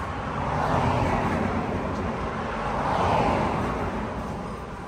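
Road traffic passing: a rushing noise that swells about a second in and again about three seconds in.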